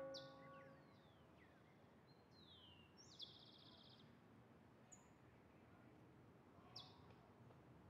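Faint birdsong over quiet outdoor ambience: a few short falling chirps, a rapid trill about three seconds in, and a couple more brief calls later. A bell's ring fades out in the first second.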